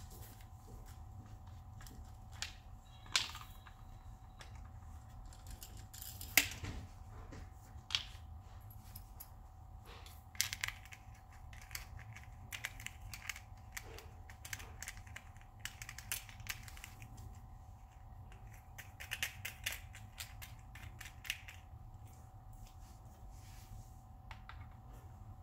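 Irregular clicks, taps and knocks of a MeFOTO Road Trip S travel tripod being handled: the column and head fitted onto the legs, then the legs folded up, with the sharpest knocks about three, six and eight seconds in and quick runs of clicks near the middle and later on. A steady low hum continues underneath.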